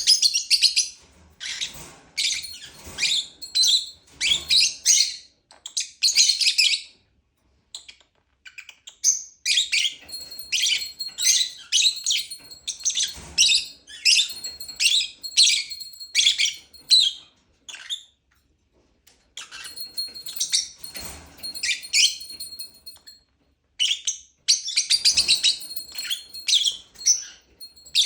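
Lovebird chirping: rapid runs of shrill, high chirps in bursts lasting a few seconds, broken by short pauses.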